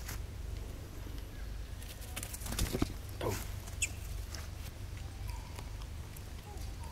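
Rustling with a cluster of clicks about two and a half seconds in, then a short animal call falling in pitch and a brief high chirp, over a steady low rumble.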